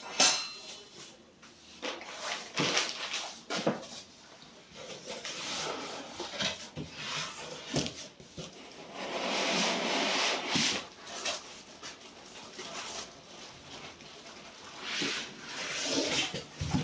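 Unboxing handling noise: a cardboard box tipped and handled, and polystyrene foam packing scraped and slid out of it, with scattered knocks and a sharp knock at the start as a metal mounting bracket is set down on the table.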